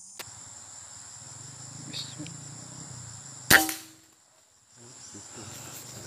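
Forest insects shrilling steadily, with one sharp, loud crack about three and a half seconds in. After the crack the sound drops away for about half a second.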